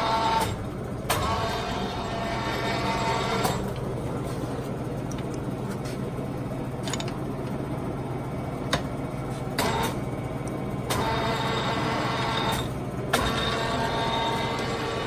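Large Poreba TPK80 engine lathe with its motor humming steadily while the power rapid traverse is switched on and off several times. Each time the traverse runs, a whine comes in, and it starts and stops abruptly with a click as the apron lever is moved.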